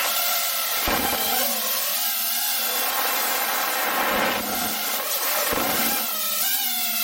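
DJI FPV drone's motors and propellers whining in flight, recorded up close from a camera on its frame, the pitch rising and falling with the throttle. Brief low rumbles of wind on the microphone come about a second in and twice more later.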